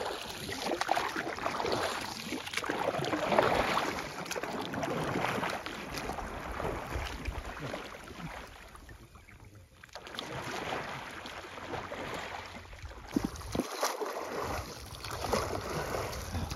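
Improvised wooden paddles splashing and churning the water beside a homemade raft wrapped in plastic sheeting, in irregular swells, with some wind on the microphone. The splashing eases briefly about two-thirds of the way through.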